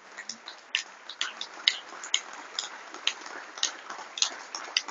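Faint sharp clicks repeating fairly regularly, about two a second, over a quiet room background.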